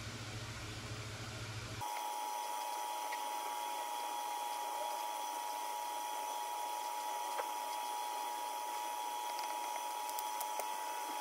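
Steady room hum with a constant faint whine, and a few light taps of an Apple Pencil on the iPad's glass screen.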